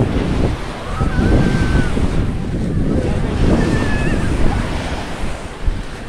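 Small waves breaking and washing up a sandy shore, in swelling surges, with wind rumbling on the phone's microphone.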